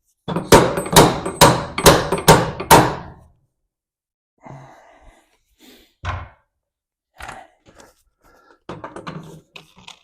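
Hammer blows driving out a stuck part during torsion bar removal on a truck: about eight quick, loud strikes in the first three seconds, then a few lighter knocks and clunks.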